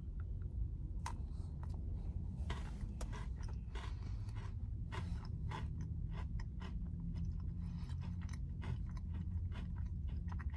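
A person biting into and chewing a Twix chocolate egg, its crisp cookie crunching in many small, sharp crackles through the chewing. A steady low hum runs beneath.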